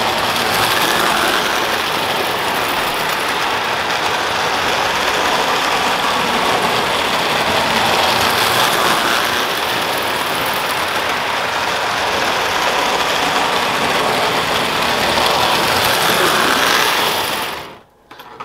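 Marx 1666 tinplate steam locomotive, with a double-reduction electric motor, pulling its freight cars on tubular three-rail O-gauge track: a steady mechanical rattle and whir of the motor and metal wheels on the rails. The sound cuts out briefly near the end.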